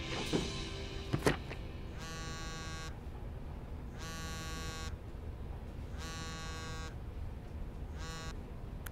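Smartphone vibrating on a table with an incoming call: three buzzes of about a second each, two seconds apart, then a short fourth buzz that cuts off. Two sharp knocks come about a second in, before the buzzing starts.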